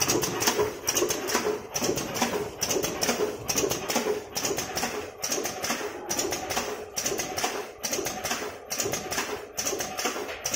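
Vertical form-fill-seal packing machine running, a dense rapid clatter that breaks for a moment about every second and a half to two seconds as it works through its bagging cycle.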